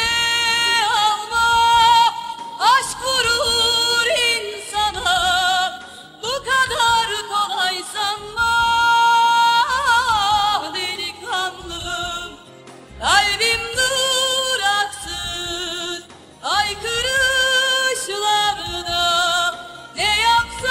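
A woman singing long, ornamented vocal runs, her pitch sliding and wavering with vibrato, in phrases broken by a few short pauses.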